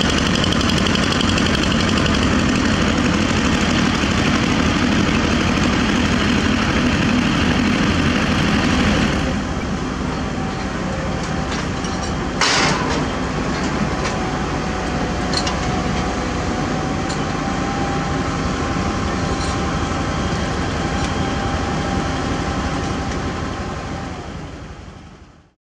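Diesel engines of heavy construction machinery, a ready-mix concrete truck and excavators, running steadily. About nine seconds in the sound cuts to a quieter mix of machine engines, with a single sharp clank a few seconds later and a few light knocks, then fades out at the end.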